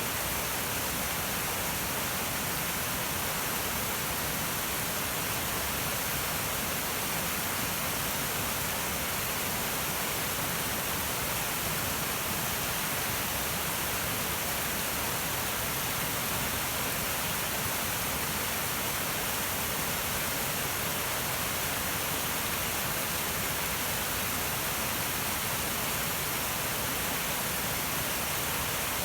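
Steady roar of the South Fork Snoqualmie River's rushing water in flood, swollen by weeks of torrential rain.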